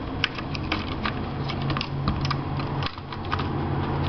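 Irregular light plastic clicks and rattles from a replacement Dell D620 laptop keyboard being handled and positioned into the laptop, over a steady low hum.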